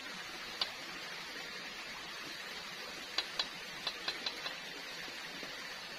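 Light clicks of a utensil against a frying pan as fried potato strips are lifted out: one just after the start, then a quick run of about six around the middle, over a steady hiss.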